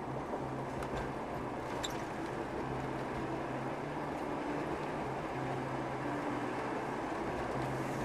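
Steady car road and engine noise heard from inside the cabin while driving along an asphalt road, with a low hum that rises and falls and a couple of faint ticks about two seconds in.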